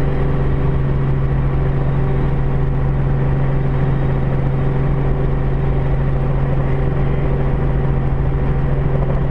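Light aircraft's engine and propeller droning steadily in cruise flight, heard from inside the cockpit.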